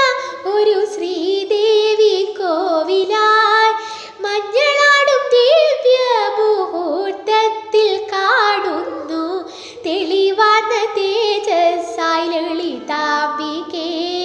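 A young woman singing a Malayalam devotional song solo, in a Carnatic style, with wavering, ornamented notes and short breaks between phrases.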